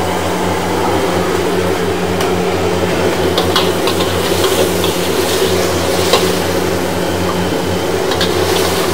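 Steady, fairly loud machine hum of a hawker-stall kitchen, like fans or a burner blower running, with a few light clinks scattered through it.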